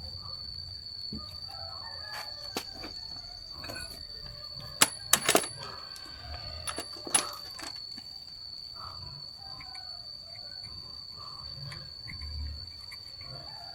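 A few sharp clinks, the loudest a cluster about five seconds in and one about seven seconds in, over a steady high-pitched insect drone. Chickens cluck faintly in the background.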